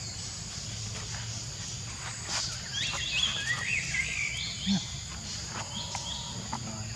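Insects droning steadily at a high pitch, with a run of short, high rising calls in the middle.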